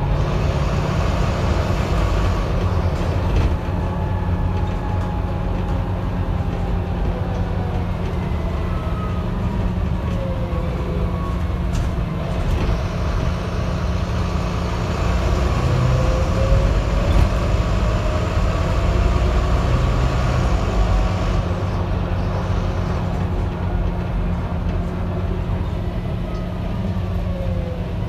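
Volvo B9TL double-decker bus heard from inside while driving: a steady low diesel drone with a whine that slides up and down in pitch several times, plus road hiss that swells for several seconds in the middle.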